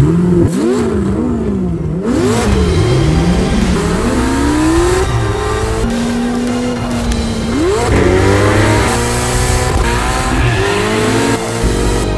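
Ferrari F8 Tributo's twin-turbo V8 starting with a sudden loud flare, then revved in a series of blips rising and falling in pitch. It settles briefly at a steady note, then accelerates with the pitch climbing in several stepped rises.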